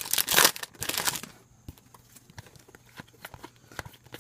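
Foil wrapper of a Topps Chrome trading-card pack crinkling for about the first second, then a few light clicks and taps as the stiff chrome cards are handled.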